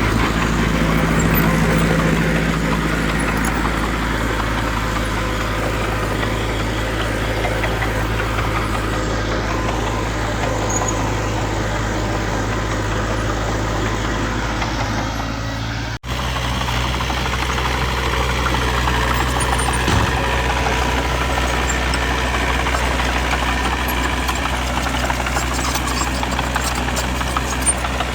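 Diesel engines of earthmoving machinery (dump trucks and a small bulldozer) running steadily with a low clattering hum, broken by an abrupt cut about halfway through, after which the engine sound carries on slightly changed.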